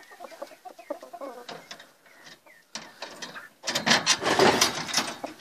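Rooster clucking in short, soft notes, then about three and a half seconds in a loud burst of rapid scratching and rattling lasting about a second and a half as it rakes and flings the litter in its coop.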